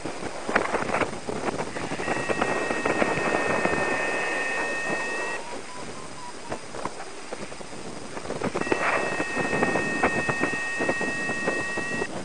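Wind buffeting the microphone during a paraglider flight. A steady high electronic beep from the flight instrument is held for about three seconds, twice: from about two seconds in, and again from about eight and a half seconds in.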